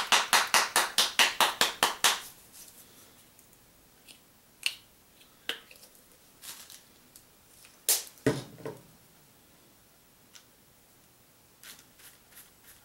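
A rapid run of sharp clicks, about six a second for two seconds, then a handful of single taps and knocks.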